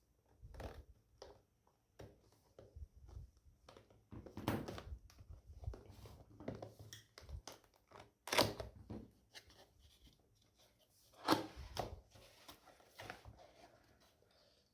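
A cardboard keyboard box being opened and handled by hand: irregular rustling, scraping and tearing of packaging, with three louder scrapes about four and a half, eight and a half and eleven seconds in.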